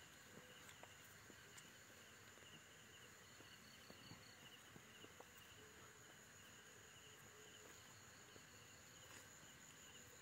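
Faint night insects chirping, a steady high pulsing trill in the background, with a few soft ticks.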